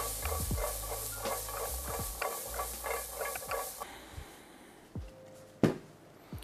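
Chopped asparagus sizzling and rattling in a nonstick frying pan as it is tossed, cutting off suddenly about four seconds in; a single sharp knock near the end.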